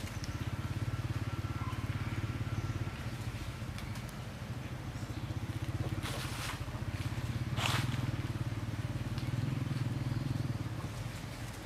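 A motor running steadily off-screen, a low even hum with a fast pulse, with two short bursts of noise about six and seven and a half seconds in.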